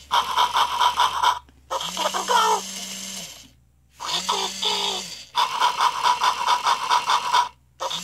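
Tekno robotic Dalmatian toy playing its electronic dog sound effects through its small speaker. A repeating cycle of a rapid chattering run of electronic pulses and a short warbling, falling-pitched yelp-like sound, with brief silent gaps between them.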